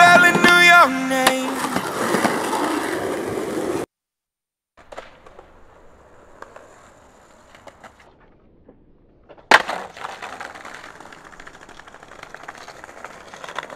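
A rock music track plays and fades out within the first four seconds. After a short gap comes a single sharp clack of a skateboard on the pavement, then the board's wheels rolling over brick pavers with rapid small clicks.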